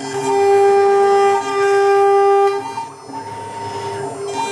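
Stepper motors of a 6040 CNC router giving off steady pitched tones as the machine feeds an end mill through Delrin. The pitch changes from one move to the next, with the spindle and cutting noise underneath. Two long, loud tones fill the first two and a half seconds, then the sound drops and goes on lighter.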